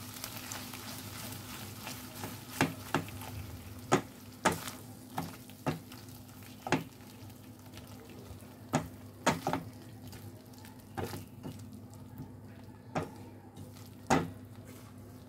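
Spatula stirring a thick masala and yogurt gravy in a non-stick wok, scraping and tapping against the pan at irregular intervals about once a second, with a faint sizzle over a low steady hum.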